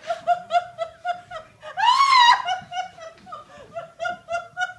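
High-pitched laughter in rapid repeated pulses, with a loud rising-and-falling squeal about two seconds in.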